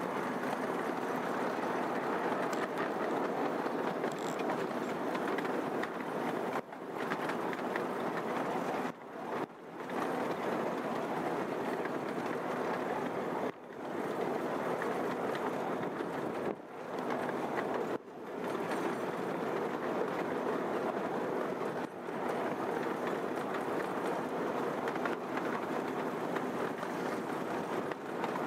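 Diesel freight train passing close by, its locomotives and wheels on the rails making a steady rumble, broken by several brief sudden drops in level.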